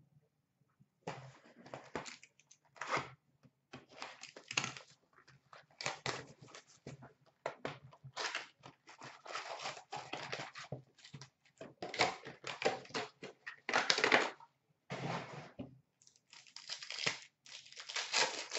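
Cardboard card box being handled and opened, and foil wrappers of O-Pee-Chee Platinum hockey card packs being torn and crinkled by hand: an irregular run of rustling and ripping starting about a second in.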